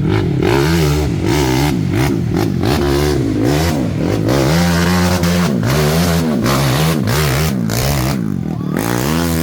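ATV engine revving up and falling back again and again, roughly once or twice a second, as the throttle is worked over rough off-road ground.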